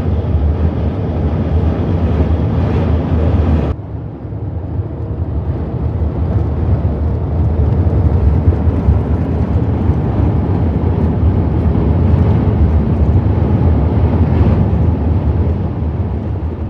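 Vehicle being driven along a road: steady road and engine noise with a strong low rumble. The higher hiss drops off abruptly a little under four seconds in, then the noise carries on evenly.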